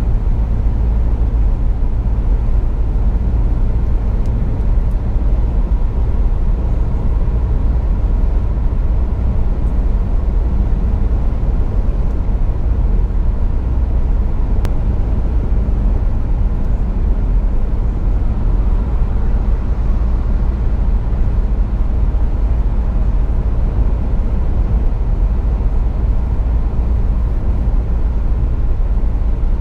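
Steady low rumble of a car cruising at speed, heard from inside the cabin: road and engine noise with no change in pace.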